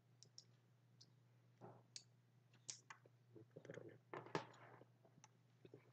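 Faint scattered clicks and light plastic taps as a Logitech G403 wireless mouse is handled and put back into its packaging.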